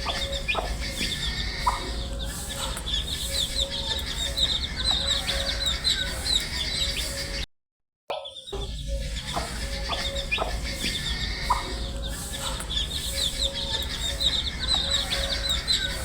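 A brood of baby chicks peeping continuously, a dense stream of short, high chirps over a low steady hum. The sound cuts out for about half a second around the middle, then the same stretch of peeping starts again.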